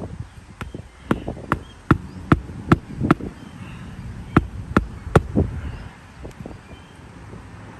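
A hammer driving roofing nails into a replacement 3-tab asphalt shingle: about ten sharp strikes, two to three a second, with a short pause in the middle.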